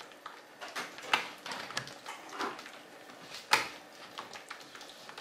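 Pork lard being beaten by hand in a bowl: irregular wet squelches and slaps, the loudest about three and a half seconds in.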